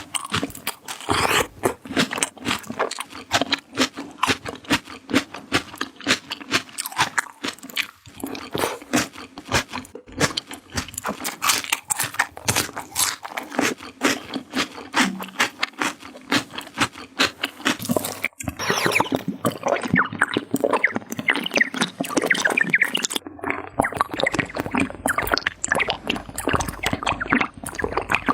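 A person chewing crunchy raw vegetables: a dense, irregular run of crisp crunches, several a second. The crunching changes texture about two-thirds of the way through.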